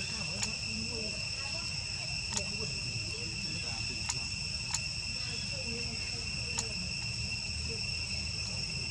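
Steady, high-pitched drone of an outdoor insect chorus, unchanging throughout, over a low steady rumble. About five sharp clicks sound at irregular moments.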